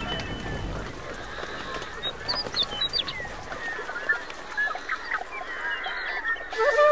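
A chorus of birds calling, many short overlapping calls at once, with a low rumble fading out in the first second and pitched music starting near the end.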